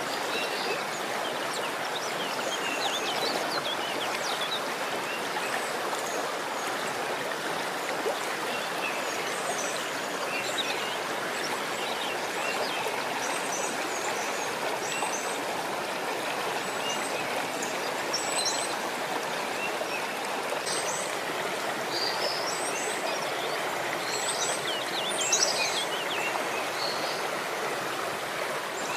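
Running water of a stream, a steady rushing, with short high chirps scattered throughout and a cluster of them near the end.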